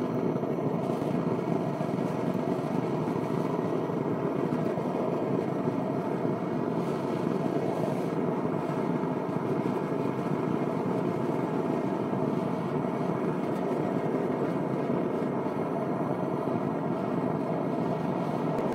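Propane burner of a small melting furnace firing steadily, a continuous even rush of burning gas.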